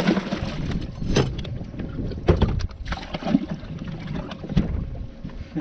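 Wind rumbling on the microphone aboard a bass boat, broken by several sharp knocks and clunks of gear being handled on the deck; the loudest comes a little past the middle.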